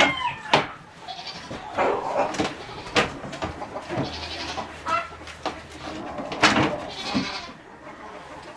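Farm animals calling with short cries, mixed with several sharp knocks.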